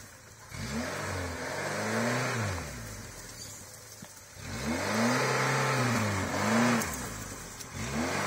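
Lada Niva's four-cylinder engine revving up and dropping back in repeated swells, twice and then again near the end, as the 4x4 crawls up a rocky trail under load.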